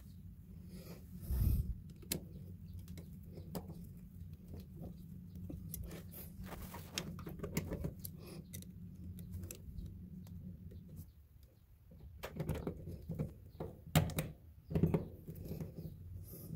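Scattered small clicks, knocks and scrapes from handling a wall outlet, pushing the receptacle and its wires into the electrical box and lining up its mounting screws. A faint low hum underneath stops about eleven seconds in.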